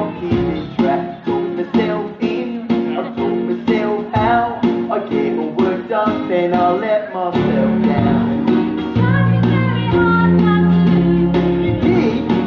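Music with a steady strummed beat and a voice singing; from about halfway, long held low notes join in and fill out the sound.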